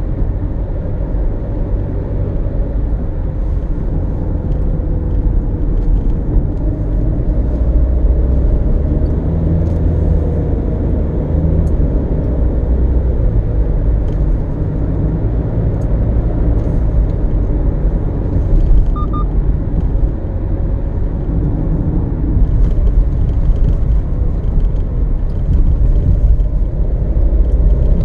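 Car being driven: a steady low rumble of engine and road noise, with the engine note drifting slightly up and down.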